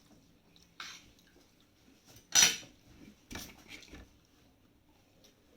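Metal spoon clinking against a plate during a meal: a few separate knocks, the loudest a little over two seconds in.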